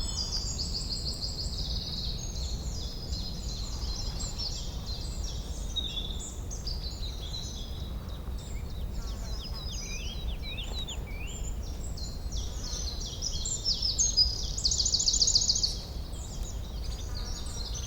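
Forest ambience with many birds singing at once: overlapping chirps, trills and quick falling whistles over a steady low rumble, with a louder rapid trill about three-quarters of the way through.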